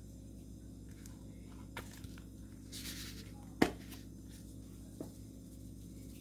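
Hands handling plastic seasoning shakers over a bowl of flour: a few light clicks, a brief shaking hiss of spice being sprinkled, then one sharp knock of a container against the counter or rim, over a steady low hum.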